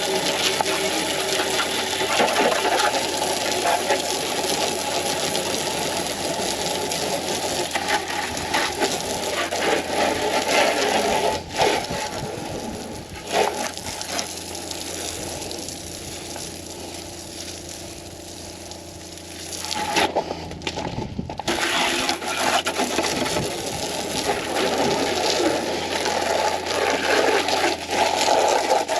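Water spraying from a hose onto a truck camper's windows and body, an even hiss that grows fainter for a few seconds in the middle, stops briefly about twenty seconds in, then starts again.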